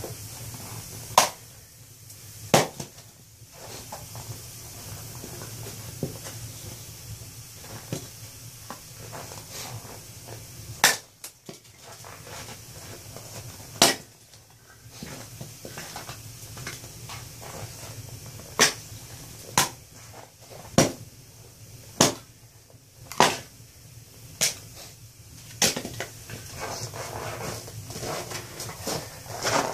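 An axe splitting firewood: a dozen or so sharp, short wooden cracks and knocks, spaced out at first and then coming about once a second in the second half.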